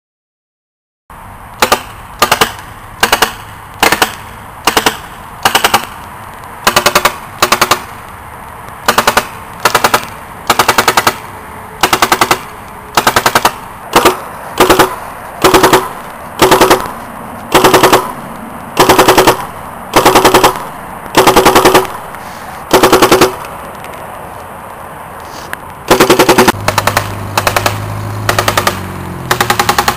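Tippmann A5 paintball marker, fitted in a Browning .50 replica kit, firing short rapid bursts of shots one after another, about one burst a second, with some longer bursts later. Near the end a vehicle's engine runs beneath the shots.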